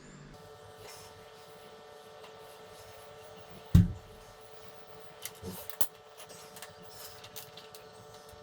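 A single heavy thump nearly four seconds in, then a few light clicks and knocks, over a steady electrical hum.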